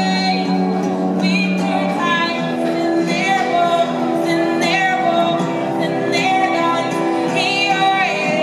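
Music: a melody of held, wavering notes over sustained lower notes, playing without a break.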